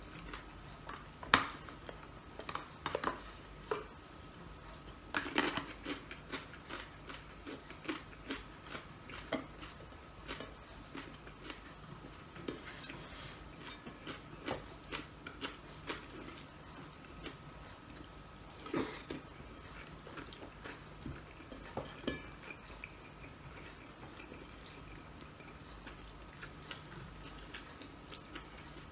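Quiet eating sounds: chewing and fingers working rice and fried fish on a plate, with scattered light clicks and knocks of dishes, the sharpest about a second in. A faint steady hum runs underneath.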